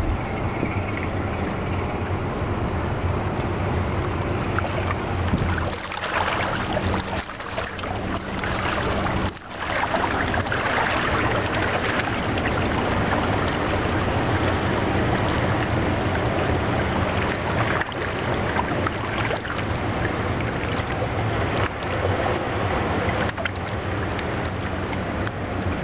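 Coastal motor ship's diesel engine running with a steady low hum as it passes close by, over a continuous rush of water along the hull; the rush is strongest around ten to thirteen seconds in, as the stern goes by.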